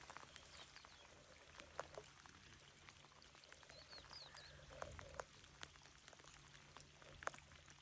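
Near silence with faint scattered drips and ticks of light rain, and a few faint high chirps about four seconds in.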